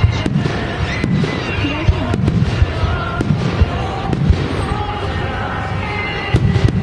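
Fireworks bursting overhead in a steady run of sharp bangs, about two or three a second.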